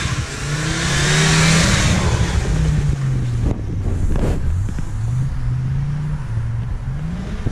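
Audi quattro turbo's engine revving up and down repeatedly as the car is driven hard around a grass field, with a loud hiss in the first two seconds.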